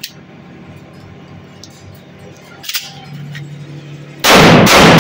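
A click as the magazine goes into a Glock 26 Gen4 9 mm pistol, a second metallic click a little under three seconds in, then, a little after four seconds in, several shots fired in quick succession, so close together they run into one very loud, clipped blast.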